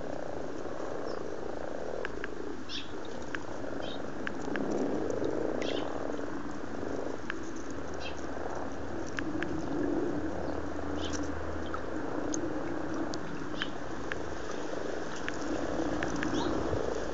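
A breeding chorus of common frogs croaking steadily in spawning season, with scattered small clicks over it.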